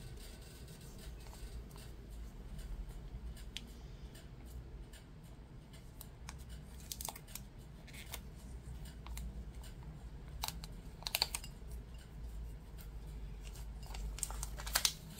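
Clear transfer tape being rubbed down onto a vinyl decal on a glass bottle and peeled away: faint scattered crinkles and short crackles of plastic film, coming thicker near the end as the tape is lifted off.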